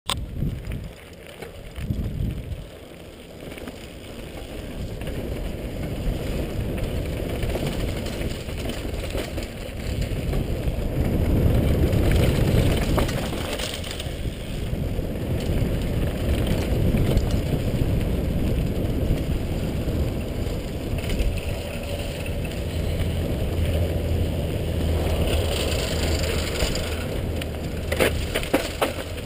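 Downhill mountain bike ridden down a dirt and gravel trail, heard from a helmet-mounted camera: tyres crunching over loose dirt and stones in a steady rumble, with a quick cluster of sharp knocks near the end as the bike drops down a rough, steep section.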